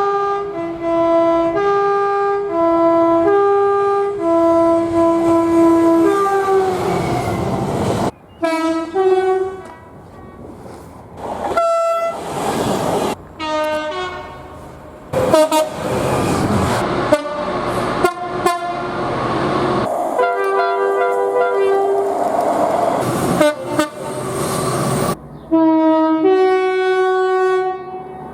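Train horns cut together one after another. First a two-tone horn alternates high and low notes repeatedly for about six seconds. Then come the noise of trains running, several short horn blasts and a sustained chord, and a longer multi-note horn near the end.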